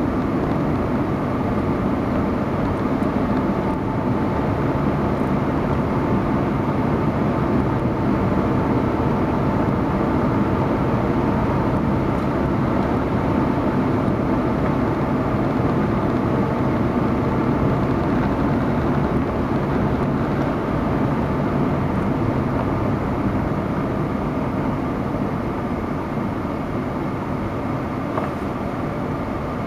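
Car driving at steady road speed: constant engine hum and tyre-on-asphalt road noise, easing slightly near the end.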